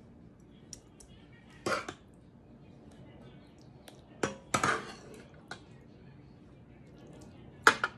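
Metal spoon clinking and scraping against a metal pot and roasting pan as a wet ground-meat and cream-of-mushroom mixture is scooped and spooned out: a few separate clinks and scrapes, the sharpest near the end.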